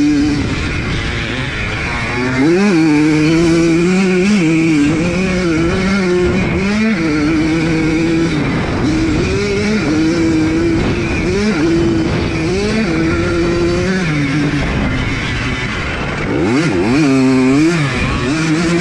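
1982 Yamaha YZ100's two-stroke single-cylinder engine heard from on board under race riding, its revs repeatedly climbing and dropping as the throttle is worked and gears change. Near the end it revs sharply up and falls back down.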